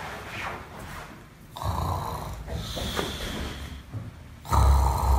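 A man snoring in his sleep: a faint breath at first, then two long, loud snores, the first about one and a half seconds in and the second near the end.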